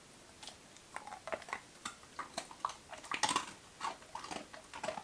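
A dog chewing and crunching a small heart-shaped beef dog biscuit, with irregular crunches starting about half a second in. The biscuit is fairly firm but not too hard, so it gets chewed through easily.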